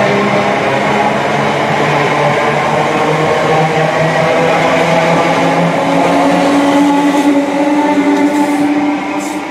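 A Greater Anglia electric multiple unit running past the platform and away, with steady wheel-on-rail noise and an electric whine that steps up in pitch about halfway through. The sound eases slightly near the end as the last carriage goes by.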